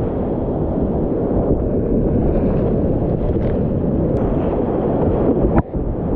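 Loud, steady roar of whitewater rapids heard from a kayak running them, with water spray buffeting the microphone. The roar drops out for a moment near the end.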